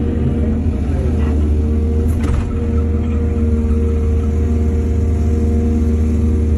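Heavy diesel engine of an excavator running steadily with a low rumble, its pitch dipping briefly about a second in as it takes load. Short knocks sound around one and two seconds in.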